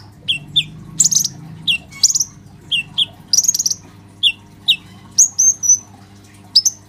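Male kolibri ninja sunbird calling in full voice: quick clusters of high, thin chirps and twitters, each set off by a pair of short falling notes. A few brief whistled notes come near the end.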